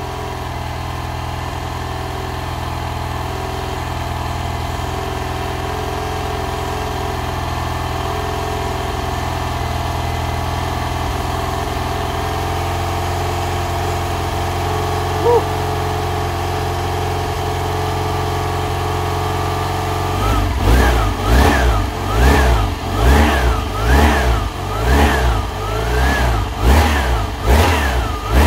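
BMW R1100GS flat-twin boxer engine idling steadily, then blipped on the throttle about nine times in quick succession, roughly once a second, each rev rising and falling. It is running again after years of standing unused.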